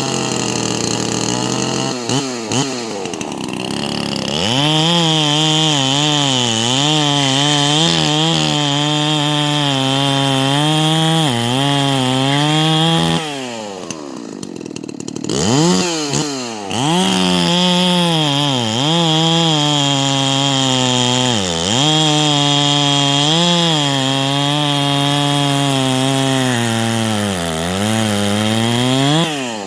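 Holzfforma G366 two-stroke chainsaw, a Stihl MS361 clone, cutting wood. It revs up to full throttle and the pitch dips again and again as the chain loads in the cut. About 13 s in it drops back to idle, revs up again a few seconds later for a second cut, and falls back near the end.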